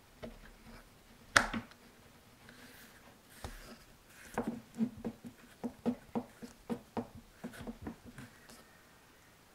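M1 iMac's magnetic power connector snapping onto the port on the back of the aluminium body: one sharp click about a second and a half in. Then a run of about a dozen lighter clicks, roughly two a second, as the connector and cable are handled against the aluminium back.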